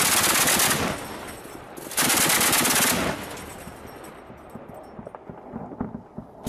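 Truck-mounted twin-barrel anti-aircraft autocannon firing two bursts, each about a second long, the second about two seconds after the first. The report echoes and dies away over the last few seconds.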